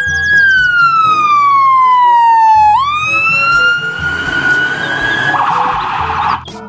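Ambulance siren wailing: a tone that falls slowly for a couple of seconds, jumps back up about two and a half seconds in and rises again. A rush of noise takes over about five seconds in.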